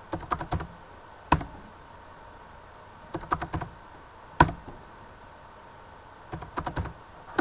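Computer keyboard keystrokes: small quick runs of a few key clicks, with single separate taps between them, as numbers are typed into a calculator.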